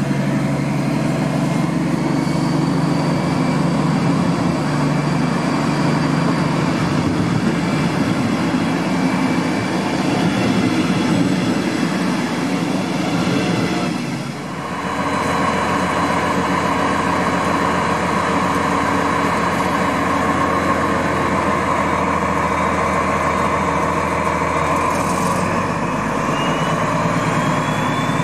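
DB class 218 diesel-hydraulic locomotive with its MTU 12V 956 TB11 V12 diesel engine running under power as it hauls a passenger train. The engine note dips briefly about halfway and comes back with a different tone. A thin rising whine comes in near the end.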